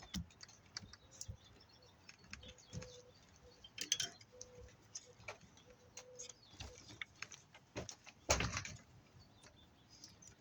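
Irregular clicking of a ratchet wrench and clinks of metal parts as a capacitor is unbolted from a dishwasher motor, with a louder clatter about four seconds in and again about eight seconds in.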